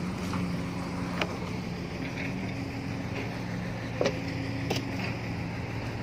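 Case Super L backhoe loader's diesel engine running steadily, a constant low hum, with three short sharp clicks over it.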